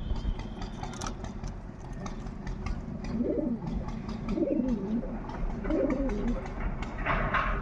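Pigeon cooing: three low coos, each rising and falling, about a second apart. A short noisy burst follows near the end.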